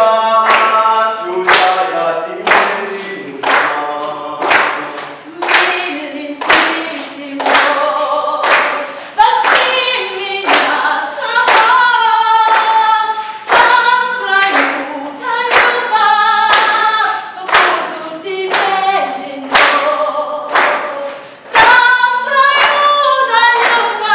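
A group of young men and women singing a song in Russian together, unaccompanied, with hand claps keeping a steady beat about one and a half times a second.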